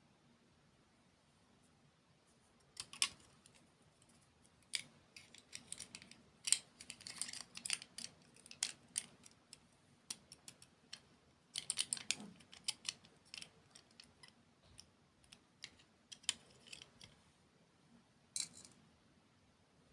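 Close-miked crunching and crackling in irregular bursts, as from biting and chewing crunchy sweets. The crackles come in clusters, with a sharp snap near the end.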